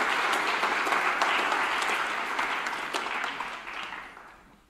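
Audience applauding, steady at first and dying away over the last second or so.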